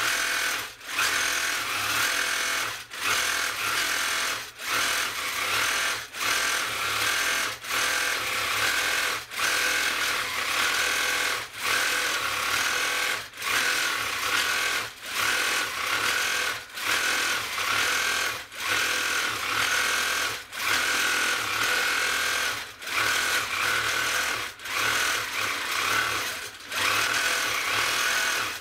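Handi Quilter Forte longarm quilting machine running as it stitches, a steady rapid mechanical chatter that drops away briefly about every two seconds.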